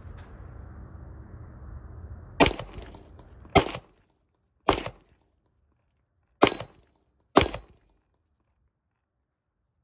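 Five shots from a Springfield XDM Elite Compact 9mm pistol firing Underwood 124-grain +P+ loads. Three come about a second apart, then after a short pause two more a second apart, each a sharp crack with a brief tail.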